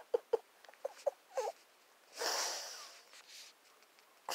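A run of quick, smacking kiss sounds during the first second and a half, then a single breathy puff of air a little after two seconds in.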